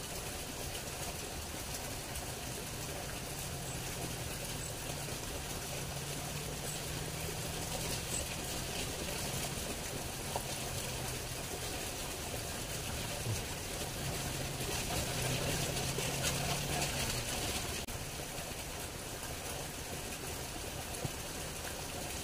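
Steady rush of running water from a small stream, with a faint low hum that comes and goes, strongest in the first few seconds and again a little past the middle.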